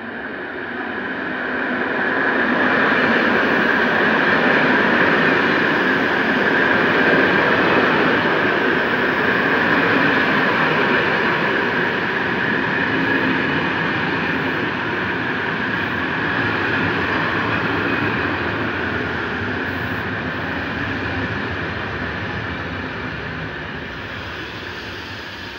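Corail Intercités passenger train pulling into the station: the electric locomotive passes close by, then the coaches roll past, slowing as they brake for the stop, with a steady high whine over the wheel and rail noise. The sound builds over the first few seconds and then slowly fades as the train slows.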